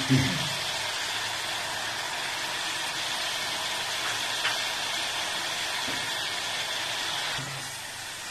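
Mutton pieces and fat sizzling steadily in a hot karahi, with a brief low thump right at the start; the sizzle eases a little about seven seconds in.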